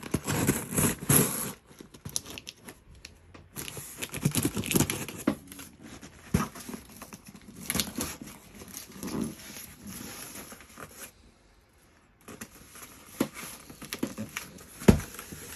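Packaging being handled and torn open by hand: irregular crinkling and tearing with scattered sharp clicks, stopping briefly about eleven seconds in.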